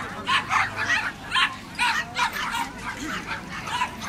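A dog barking in quick short yaps, about three a second, on and off throughout.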